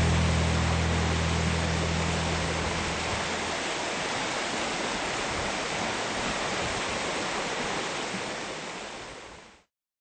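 Steady rush of a rocky mountain creek, with the last low notes of the string band's final chord dying away in the first few seconds. The water sound fades out near the end.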